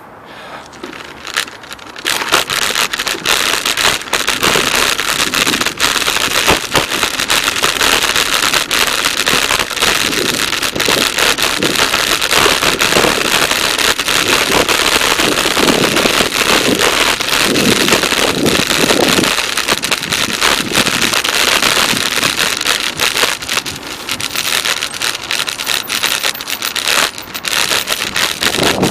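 Wind rushing over the microphone of a camera on a moving bicycle, a steady loud rush mixed with many small crackles and rattles from the ride over the pavement. It starts about two seconds in.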